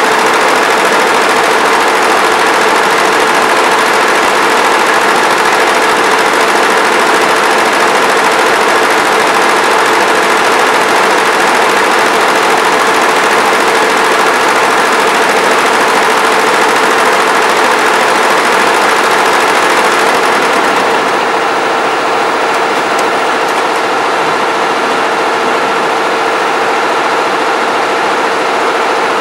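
Multi-needle embroidery machine stitching at speed: a fast, steady mechanical rattle over a hum. About 21 seconds in the stitching stops as the design finishes, and a quieter steady hum of the machine carries on.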